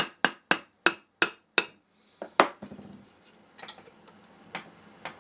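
Sharp metal tapping on a Tecumseh engine's sump plate, about three strikes a second for six quick blows, then a single harder strike and some lighter clinks. The plate is stuck to the crankshaft and is being knocked loose.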